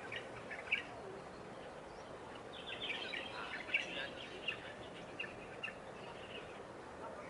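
Small birds chirping in short, quick notes, busiest about three to four seconds in, over a steady outdoor background hiss.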